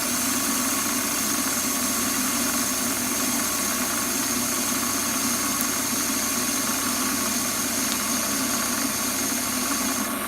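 Warco metal lathe running steadily while taking a light 0.1 mm finishing cut: a steady motor hum with a high hiss over it that stops just before the end as the cut finishes.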